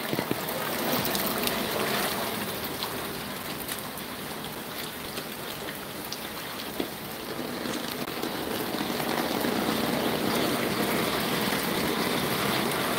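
Steady rain falling, heard from under an umbrella, with many fine drop ticks; it grows a little louder in the second half.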